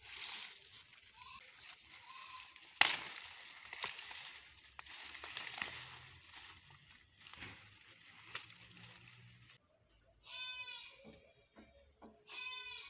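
Leafy plants rustling as they are pushed aside and handled, with one sharp crack about three seconds in. From about ten seconds in a goat bleats twice, each call wavering.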